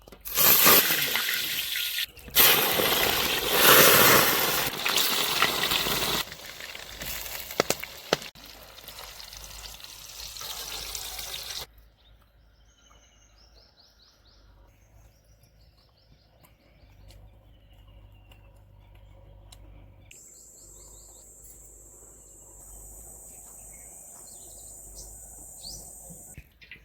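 Water pouring and splashing, loud for the first few seconds and then quieter, which stops abruptly about twelve seconds in. After that come quiet outdoor surroundings with birds chirping now and then, and a steady high-pitched hiss or buzz over the last several seconds.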